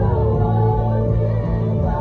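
Live gospel band music: an electric bass guitar plays a rhythmic groove of sustained low notes with keyboard over it.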